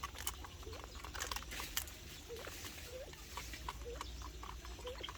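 Small aviary birds giving short, repeated chirping calls, mixed with scattered light clicks and taps.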